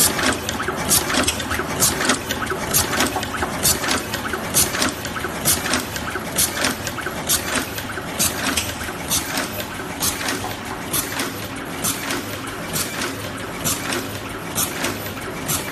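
Double-headed automatic wire cutting, stripping and terminal crimping machine running in production, a sharp mechanical clack about once a second as it cycles, over a steady hum.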